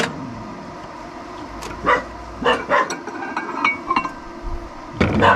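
Microwave oven door opened and a ceramic bowl of hot curry lifted off the turntable: a string of short knocks, clicks and clinks, with a louder knock near the end.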